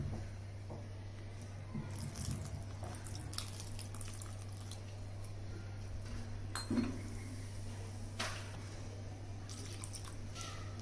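Wire whisk clinking and scraping in a glass bowl, mixing egg into wheat flour, in scattered short strokes over a steady low hum. Near the end water is poured into the batter.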